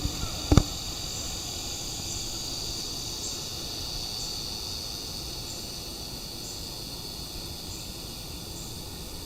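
Steady high-pitched drone of insects in summer. A single sharp knock comes about half a second in.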